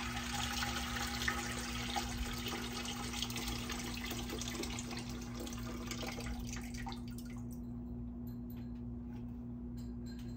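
Apple-soaking liquid pouring out of a three-liter jar into a stock pot: a steady splashing pour that thins and stops about seven seconds in, followed by a few scattered drips.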